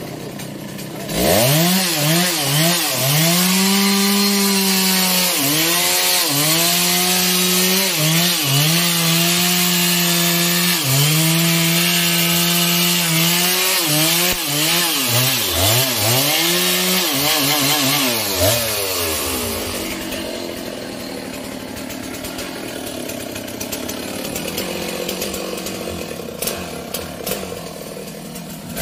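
Stihl MS 660 two-stroke chainsaw revved to full throttle about a second in, cutting through a thick trembesi log. Its pitch dips and recovers again and again as the chain bites into the wood. After about eighteen seconds it comes off the throttle and drops back to idle.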